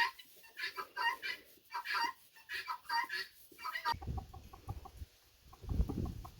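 Chickens clucking in quick runs of short calls, which stop about four seconds in. Near the end comes a low rumble.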